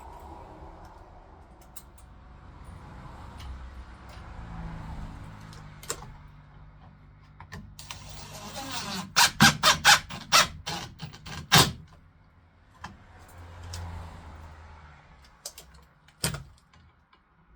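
A cordless drill-driver runs in stretches, driving screws to fix a panel board to a plywood wall. In the middle comes a run of about seven loud, sharp knocks, with one more near the end.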